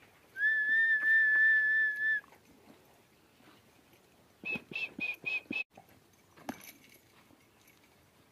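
Whistling: one long, steady, high note lasting about two seconds, then a few seconds later a quick run of five short, higher notes.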